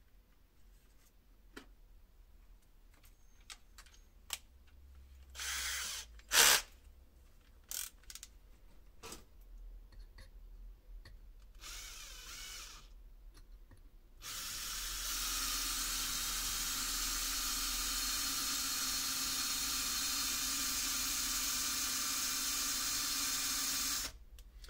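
Scattered clicks and handling knocks, one of them sharp and loud about six seconds in. From about fourteen seconds in, a small electric drill with a 2 mm bit runs steadily for about ten seconds, then stops.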